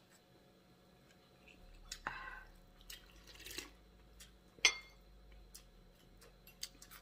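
Quiet eating sounds from a hotpot meal: soft slurps and chewing, with small clicks of wooden chopsticks against a ceramic bowl and one sharper clink about four and a half seconds in.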